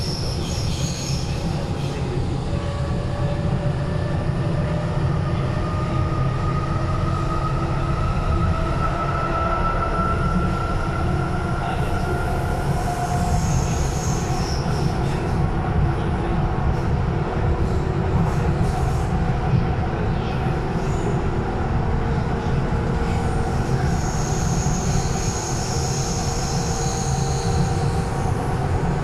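Berlin S-Bahn class 485 electric train heard from inside a passenger car while running: a steady, loud low rumble, with a whine that slowly rises in pitch over roughly the first dozen seconds. High squeals come about a second in, again around 13 seconds, and from about 24 to 28 seconds.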